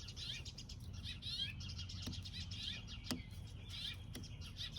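Small birds chirping repeatedly in the background, with a few sharp clicks, about one a second near the middle.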